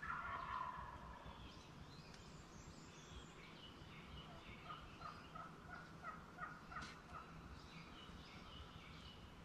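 A wild turkey gobbler gobbles once in the first second, a fast rattling call, followed by a string of shorter, quieter bird calls.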